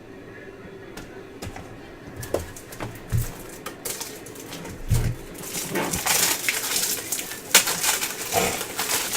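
Trading card packs and cards being handled: a few light clicks and taps, then from about halfway on a dense crinkling and rustling of pack wrappers and cards.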